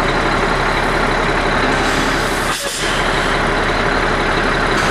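Caterpillar C12 diesel engine of a 7-ton military 6x6 truck running steadily, with a brief dip about two and a half seconds in.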